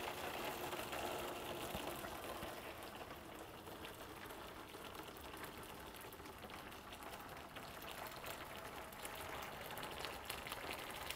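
Just-boiled water poured steadily from a kettle into a container: a continuous watery rush with fine crackling bubbles.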